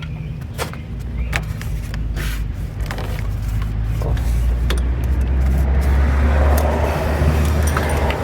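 Car engine running with a steady low hum that grows louder about halfway through, with scattered clicks and knocks over it.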